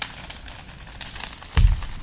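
Firewood burning, with scattered small crackles and pops, and one loud low thump near the end.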